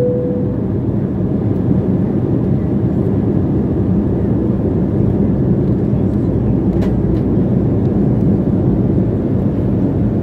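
Steady, loud cabin noise of an airplane in flight, its engines and rushing air heard from inside the cabin through a cell phone microphone. The low second note of a two-note cabin chime dies away at the very start.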